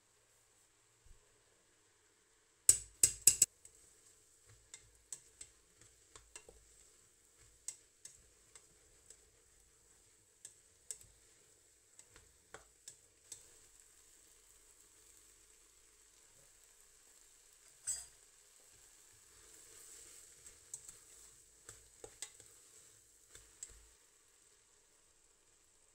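A spoon stirring thick, chunky tomato and pepper salsa in a stainless steel pot, with sharp knocks of the spoon against the pot. Three or four loud knocks come close together about three seconds in, and another loud one about two-thirds of the way through, with lighter scrapes and taps in between.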